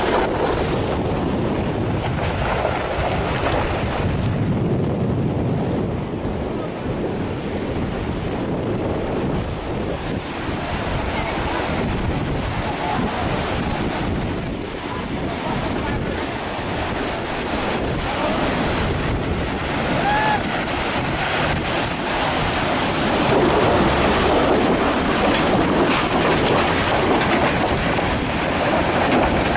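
Steady rush of a swollen mountain stream pouring across the road at a water crossing, with wind buffeting the microphone.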